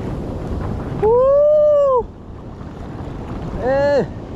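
Surf washing over a sandy beach, with wind on the microphone. Over it come two loud wordless shouts from a man: a long one about a second in that rises then falls in pitch, and a shorter falling one near the end.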